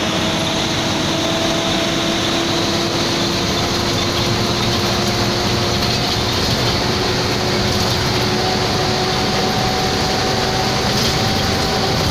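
Intercity bus on the move: steady engine and road noise, with the engine's pitch rising slowly as the bus gathers speed.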